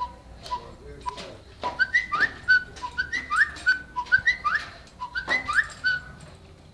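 A phone's notification tone previewing through its small speaker: a short whistle-like phrase of a few quick notes with an upward swoop, repeating about once a second.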